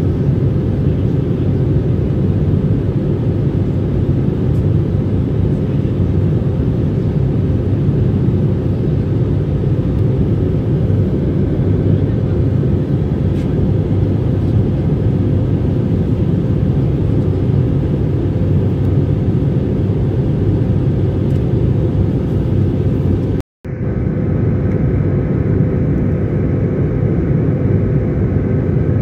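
Steady airliner cabin noise in cruise: turbofan engines and rushing airflow heard from inside the cabin, a low, even rumble with a faint steady hum on top. It cuts out for an instant about two-thirds of the way through, then carries on unchanged.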